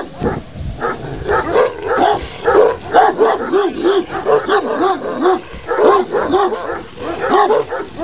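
A Kangal shepherd dog barking continuously in a rapid run of short barks, about two to three a second.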